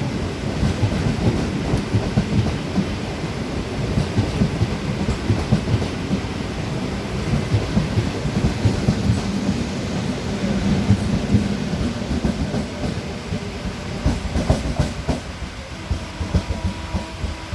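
A 22-coach MEMU electric multiple-unit train rolling past, with a steady rumble and a fast run of wheel clacks over the rail joints.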